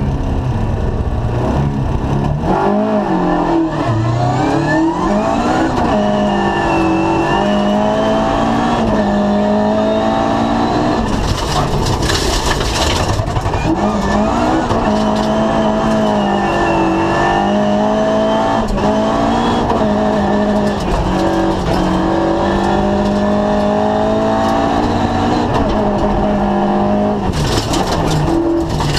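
Ford Escort RS2000 rally car heard from inside the cabin at full stage pace, the engine revving up and dropping back again and again as it is driven hard through the gears. Two short bursts of gravel noise come through, about eleven seconds in and near the end.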